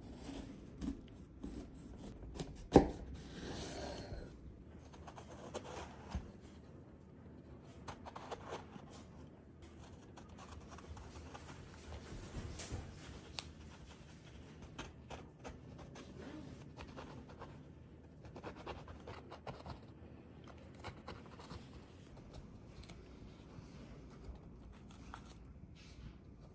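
Food-prep handling sounds on a kitchen work surface: a sharp knock about three seconds in, then soft scraping and rustling with scattered light taps.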